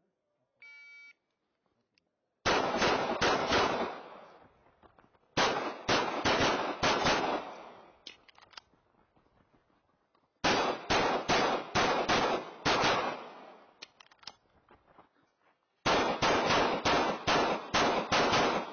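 An electronic shot timer beeps once, then a pistol fires four quick strings of shots separated by pauses of a second or more, each string several shots close together.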